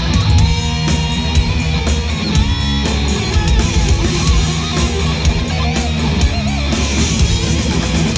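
Heavy metal band playing loudly during a sound check: distorted electric guitar and bass over a driving drum kit with regular cymbal hits.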